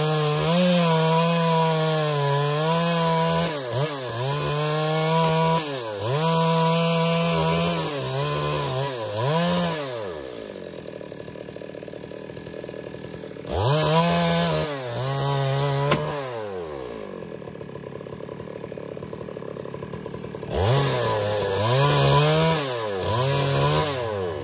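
Stihl MS 382 two-stroke chainsaw at full throttle ripping lengthwise through a red meranti log, the revs dipping and recovering as the chain bites into the wood. About ten seconds in it drops to idle, then revs up twice more for a few seconds each, with idle between.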